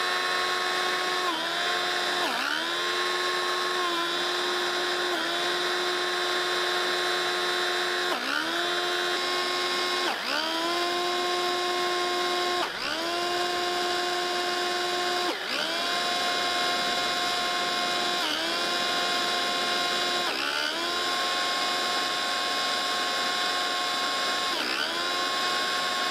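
A 3D-printed gearbox driven by six 775 DC motors, spinning a small snowblower impeller with a steady high whine. Every one to three seconds the pitch dips sharply and climbs straight back, the motors bogging briefly as the impeller takes on snow and recovering.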